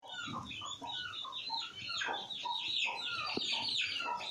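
Chickens calling: a dense run of short falling clucks, several a second and overlapping one another.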